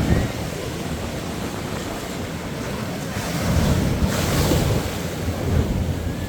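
Ocean surf breaking and washing up the beach, with wind rumbling on the microphone. A wave surges in about three seconds in and is the loudest moment.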